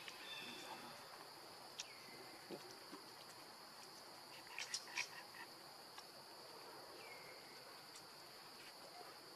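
Faint, steady high-pitched insect drone, with a few brief high chirps about two, five and seven seconds in.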